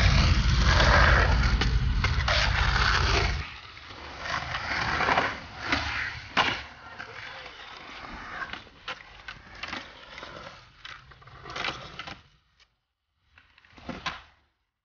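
Skateboard wheels rolling on rough asphalt, a loud rumble for the first few seconds. Then quieter rolling and carving on a concrete bowl, broken by sharp clacks of the board and trucks hitting the concrete. The sound drops out briefly twice near the end.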